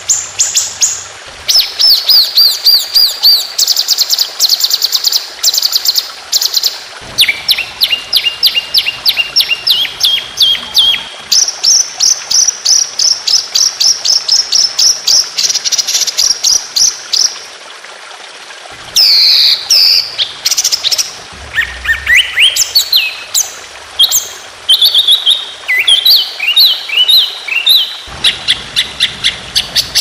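Songbird singing fast 'tembakan' song, the kind used for bird-training recordings. Long runs of rapid, evenly repeated high notes change pitch every few seconds, with a cluster of sweeping notes about two-thirds of the way through.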